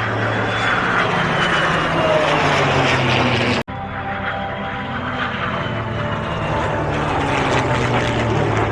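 Aircraft engine noise from a flying display, loud and steady, its pitch sliding slowly downward as the plane passes. A little past the middle the sound cuts out for an instant and comes back much the same.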